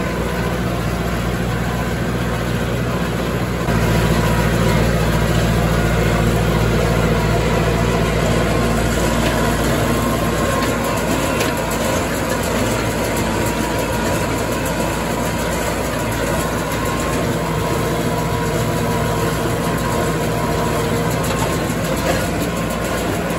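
Farm tractor engine running steadily, growing louder and heavier about four seconds in.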